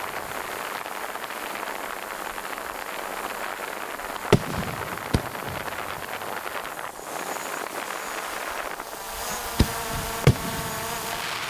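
Aerial fireworks bursting: four sharp bangs, two a little after four and five seconds in and two more near the end, over a steady hiss. From about nine seconds in, the buzzing whine of a drone's propellers comes in under them.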